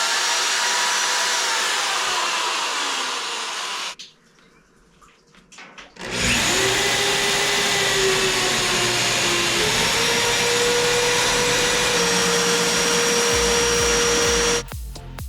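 High-speed electric motor pumping heating oil from one tank to another, running with a steady whine; it winds down about four seconds in, starts again about two seconds later, and its whine steps up in pitch about ten seconds in before it cuts off near the end.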